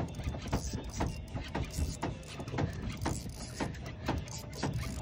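Spinning reel being cranked under load against a hooked fish, the reel's gears and handle giving a steady mechanical clicking about four times a second.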